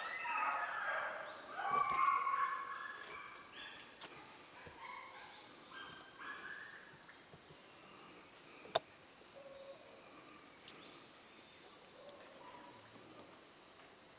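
Tropical forest ambience: a steady high-pitched insect drone under scattered bird chirps and calls, which are loudest in the first few seconds. A single sharp click sounds about nine seconds in.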